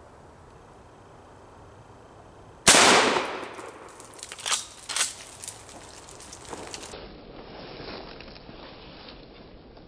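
A single shot from a 12-gauge Ithaca shotgun, sharp and loud, its report fading over about a second. Two shorter sharp knocks follow about two seconds later.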